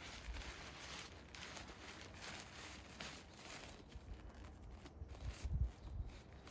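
Faint rustling and crinkling, with scattered light clicks and a soft low bump about five and a half seconds in.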